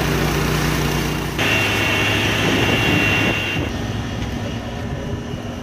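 An engine running steadily under the loud rushing hiss of fire hoses spraying water. About a second and a half in the sound changes abruptly and a thin high whistle joins the hiss, and it drops quieter near the end.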